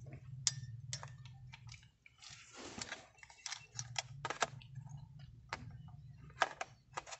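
Small plastic clicks and taps as a Nikon EN-EL14 battery is handled and fitted into the battery compartment of a Nikon D5100 DSLR, with a short rustle about two and a half seconds in, over a low steady hum.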